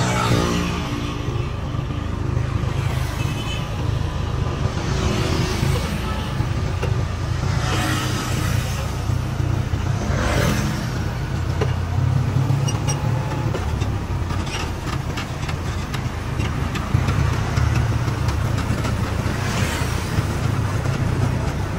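Road traffic: a steady low engine rumble, with vehicles passing by about five times.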